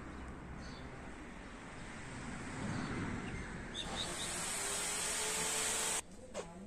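Outdoor ambience with a few small birds chirping, and a hissing rush that grows louder from about two seconds in and cuts off abruptly near the end.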